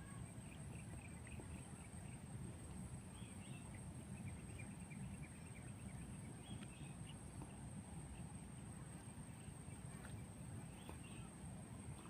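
Faint outdoor ambience: scattered short bird chirps and a steady high-pitched insect drone over a low rumble of wind.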